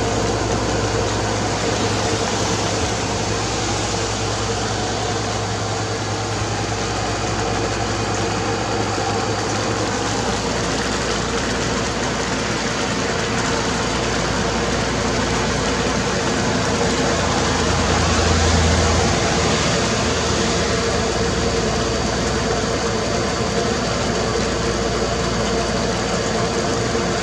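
Heavy rain falling steadily in large drops, a dense even hiss, with a steady low hum underneath.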